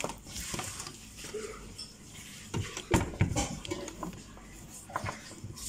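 Blender parts and kitchenware being handled on a counter: a few scattered knocks and clinks, the loudest about three seconds in.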